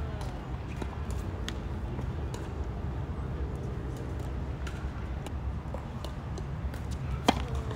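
Outdoor tennis court ambience with a steady low rumble and scattered small clicks of ball bounces and footsteps; about seven seconds in, a single sharp pop of a racket striking a tennis ball on a serve.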